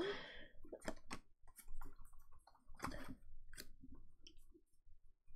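Faint, irregular clicks and light rustles of Pokémon trading cards being handled and slid one behind another while a freshly opened booster pack is sorted.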